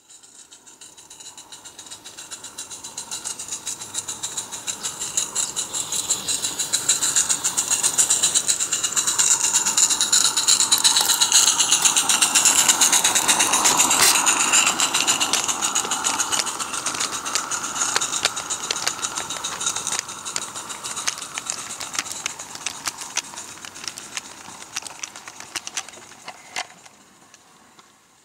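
Live-steam Accucraft Ragleth model locomotive working a train of twelve loaded mineral wagons past: a fast rhythmic exhaust beat with steam hiss and the wagons' wheels clicking and rattling over the track. It grows louder to a peak about halfway through, then fades as the train moves away.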